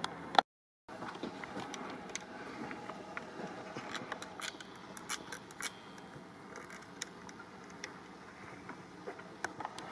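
Faint steady open-air background noise with scattered light clicks and taps of the kind made by footsteps and a handheld camera. It drops to dead silence for about half a second near the start.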